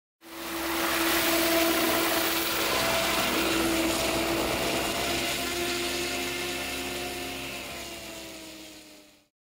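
Wire-powered electric model helicopter's motor and main rotor spinning: a steady electric whine over a rushing blade noise. The pitch sinks a little over the last few seconds as the sound fades out.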